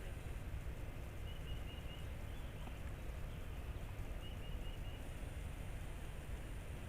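Outdoor riverside ambience: a steady low rumble, with a bird giving a quick run of four short high notes twice, about a second in and again past four seconds.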